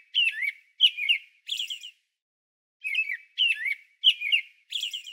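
American robin singing: short, clear whistled caroling phrases in two runs of three or four, with a pause of about a second between the runs.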